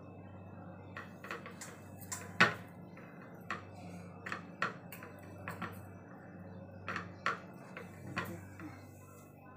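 Wooden rolling pin and round wooden rolling board clacking and knocking on a stone counter as paratha dough is dusted with flour and rolled out: irregular taps, with one sharper knock about two and a half seconds in, over a low steady hum.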